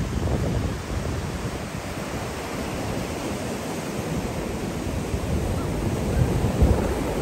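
Ocean surf washing onto a beach, a steady rush of noise, with wind buffeting the microphone.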